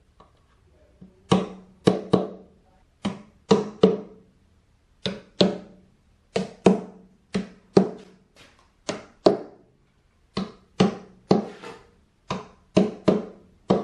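Mallet blows on a hollow wooden speaker cabinet, knocking fittings into the baffle around the driver cutouts. There are about two dozen sharp knocks, mostly in quick twos and threes, each with a short hollow boom from the empty box.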